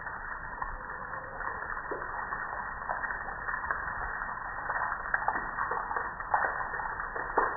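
Soapy water and foam dripping and trickling off a gas grill onto concrete: a steady crackling patter with many sharp individual drips.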